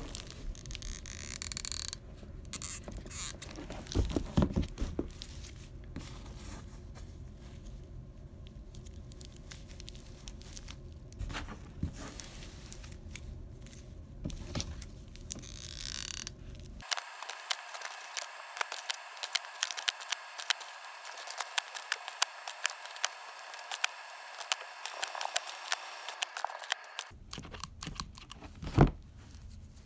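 Handling noise of cardboard and terry-towel fabric being pressed and scraped by hand while hot-gluing, with irregular scrapes, knocks and small crackles.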